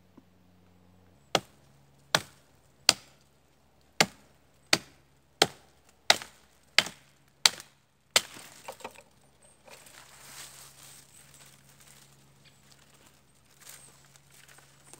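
Hatchet chopping into a birch branch: about ten sharp strokes at an even pace, each ringing crisply off the wood. Then twigs and branches rustle and crackle as the cut wood is handled.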